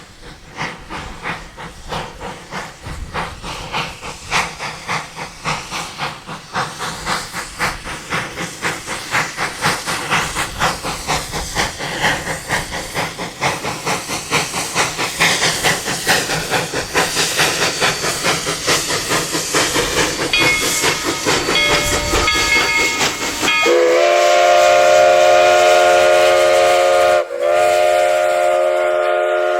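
Narrow-gauge 2-8-0 steam locomotive D&RGW No. 315 working a train, its exhaust chuffing in a quick, even rhythm that grows louder as it approaches. About 23 seconds in, its steam whistle sounds one long blast, broken briefly near the end.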